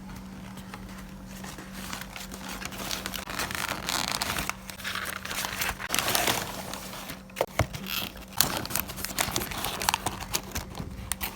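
Packaging crinkling and tearing, with a run of sharp clicks and taps in the second half over a steady low hum.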